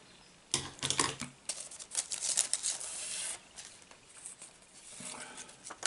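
Several scissor snips from about half a second in, then a plastic packet crinkling and rustling as it is cut open and handled.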